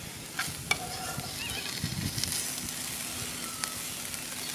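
Cod and flathead fillets sizzling in a frying pan cooked without oil: a steady hiss with scattered small crackles and pops.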